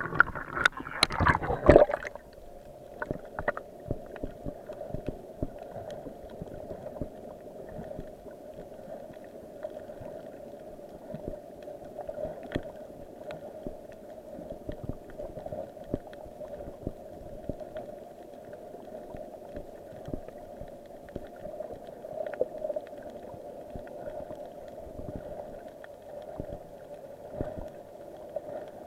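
Underwater sound picked up by a submerged camera: splashing and bubbling for the first two seconds, then a steady muffled drone with scattered crackling clicks.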